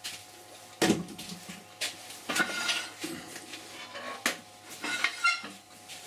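Hard metal-on-wood clanks and knocks, about five of them spread irregularly, with brief ringing between, as the workpiece is handled and refitted on the lathe chuck.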